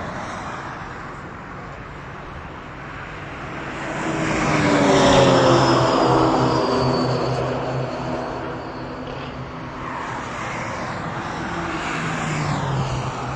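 Cars passing at speed down the main straight, engines running hard. The loudest car goes by about five seconds in, and another comes closer near the end.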